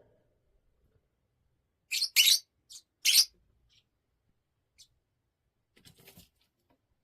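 Pet parrot giving short, sharp, high-pitched chirps. There is a loud cluster of about four about two seconds in, and a few fainter ones near the end.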